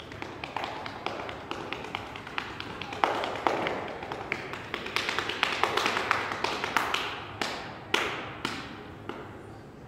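A dancer's feet tapping and stamping on a hardwood floor: an irregular run of sharp taps with short echoes, getting busier partway through, with a few harder stamps about three seconds in and again near the end.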